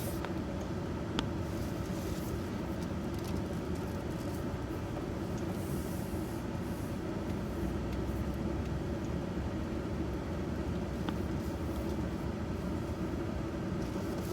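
Truck driving slowly, a steady low engine and road rumble heard from inside the cab, with two faint clicks.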